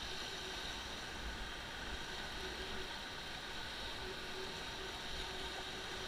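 Steady rush of river rapids, whitewater churning around an inflatable raft, an even unbroken noise with no distinct events.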